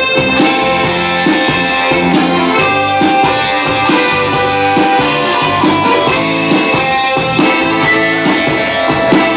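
A live band playing: guitar over a steady drumbeat of about two beats a second, with sustained melodic tones.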